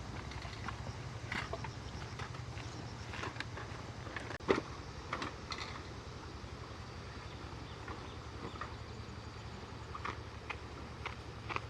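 A small engine running steadily with a low, fast-pulsing hum, with scattered light clicks and knocks over it and one sharper knock about four and a half seconds in.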